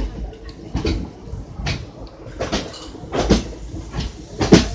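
Passenger train running, with a low rumble and a sharp clack roughly every second as the wheels pass over rail joints.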